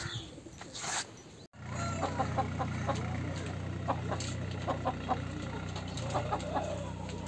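Chickens clucking in short, repeated notes over a steady low hum, after a brief dropout about a second and a half in.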